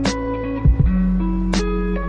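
Instrumental background music with a drum beat and held bass notes.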